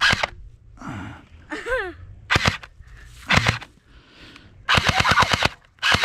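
Single sharp cracks, then a rapid rattle of cracks about ten a second, starting a little before five seconds in. The rattle breaks off briefly and starts again near the end.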